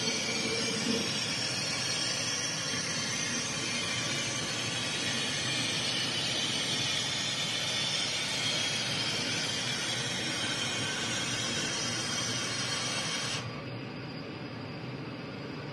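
CO2 laser cutting and engraving machine at work, its air assist and fans making a steady airy hiss. About thirteen seconds in the sound drops suddenly to a quieter, duller hum.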